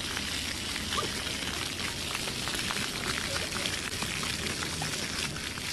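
Splash-pad floor fountain jets spraying up and falling back onto the wet tiled floor: a steady hiss of splashing water, broken by small scattered splashes.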